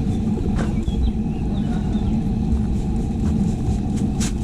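Steady low rumble, with two short hissing squirts of a hand spray bottle misting meat, about half a second in and near the end.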